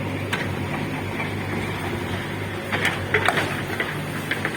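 A steady low engine hum over a constant noisy background, with a quick cluster of sharp clattering knocks near the middle and a few more near the end.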